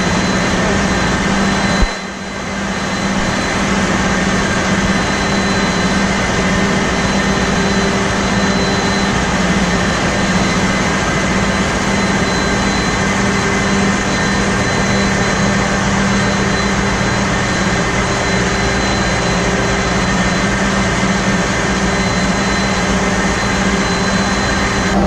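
Engine-room machinery noise of a ship under way, with its Wärtsilä 7-cylinder RT-flex82T low-speed two-stroke main engine running: a loud, even din with a steady low hum and a faint high whine. The level dips briefly about two seconds in.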